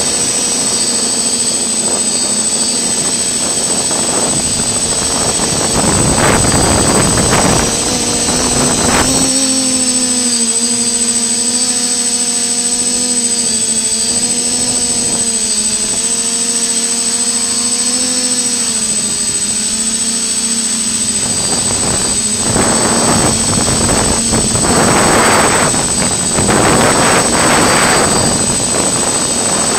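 FPV drone's electric motors and propellers whining, the pitch wavering up and down as the throttle changes, over a constant high whine. Gusts of rushing air noise come in about six seconds in and again in the last third.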